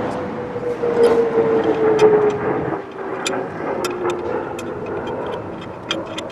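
A passing vehicle, its steady hum sliding slowly down in pitch, loudest in the first couple of seconds, with scattered light clicks throughout.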